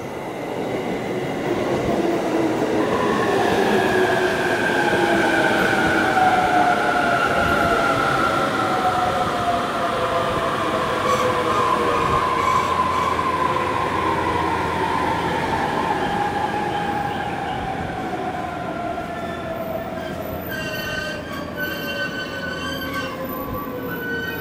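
A JR East Takasaki Line electric commuter train pulling into the platform and braking to a stop: rumbling wheels on rail under a whine from the traction motors that falls steadily in pitch as the train slows. Near the end, short high steady tones begin.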